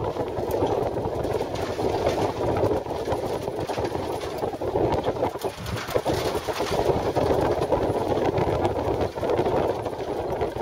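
Jeep driving over a rough dirt desert track, heard from inside: a steady engine-and-tyre rumble with frequent short rattles and knocks from the bumps.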